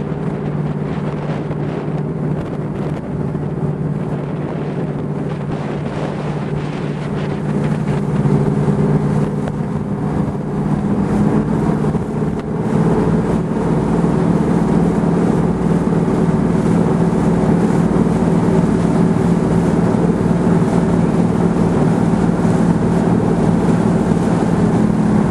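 Boat engine running steadily, with wind buffeting the microphone. It grows louder about a third of the way in and again about halfway through.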